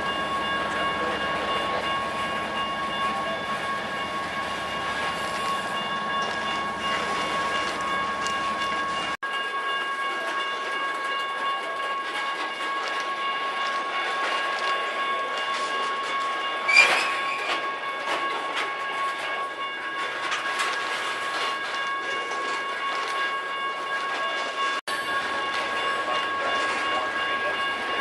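Freight train of open-top hopper cars rolling past, wheels running on the rails, with a steady high ringing of several held tones over the rumble. A brief, sharp, loud noise comes about seventeen seconds in.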